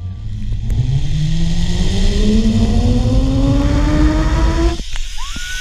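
Zipline trolley pulleys running along the steel cable, a whine that rises steadily in pitch as the rider picks up speed, with wind rumbling on the helmet-mounted microphone. The whine stops abruptly near the end.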